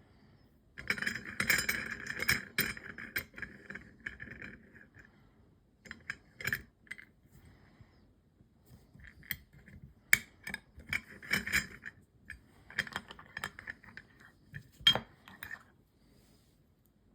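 Small metal watchmaking tools and watch parts clinking, clicking and scraping in several short spells, with two sharp clicks about ten and fifteen seconds in.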